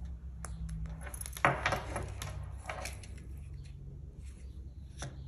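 Small handling noises of crochet work and small tools: scattered light clicks and a brief clattery rustle about a second and a half in, over a steady low hum.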